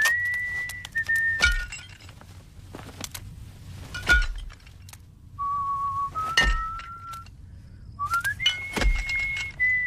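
Cartoon sound effects: a series of short whistled tones, some held and some sliding up into a note, broken four times by sharp clinking knocks with a low thud. The whistles are the kind that serve as the insect characters' voices in the cartoon.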